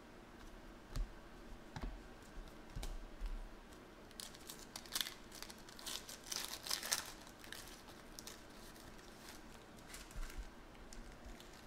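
Trading cards being handled and flipped with small sharp clicks. Then, from about four and a half to seven and a half seconds in, a card pack's shiny plastic wrapper crinkles and tears as it is pulled open.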